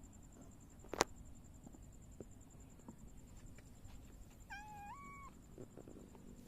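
A grey mackerel tabby cat gives one short meow, its pitch stepping up near the end, about four and a half seconds in. A sharp click about a second in is the loudest sound, with a few faint ticks around it.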